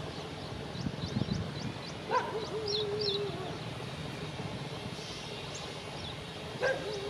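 Small birds chirping, with two drawn-out, wavering animal calls: one about two seconds in and one starting near the end. A faint low rumble lies underneath.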